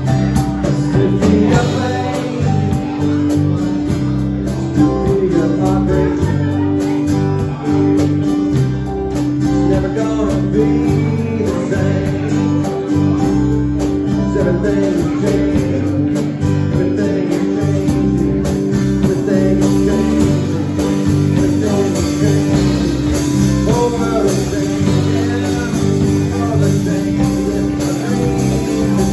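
A live band playing a song on fiddle, guitars and keyboard.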